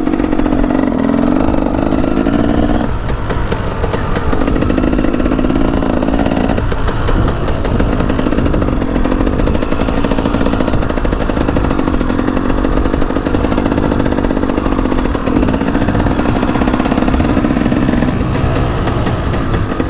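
KTM 300 EXC two-stroke dirt bike engine running under varying throttle while being ridden. The engine note drops and picks back up several times, around 3 s, 7 s, 15 s and 18 s in.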